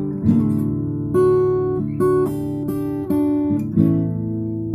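Acoustic guitar played by hand, with chords picked and strummed and a fresh note or chord struck about every half second, each left ringing. No voice.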